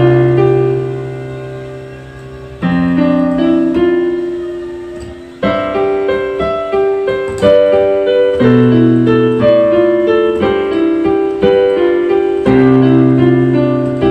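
Yamaha PSR-E373 portable keyboard played with both hands in a piano-like voice: slow held chords over a low bass note, struck anew every two or three seconds and fading away, with a simple right-hand melody on top.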